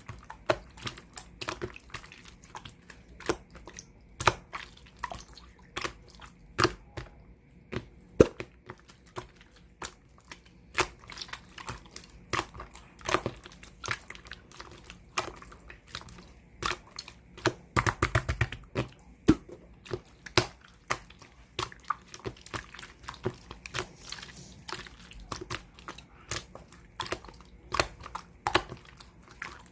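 Hands squishing and pressing clear sky-blue slime, making a steady stream of irregular wet clicks and pops, with a thick run of crackling about two-thirds of the way through.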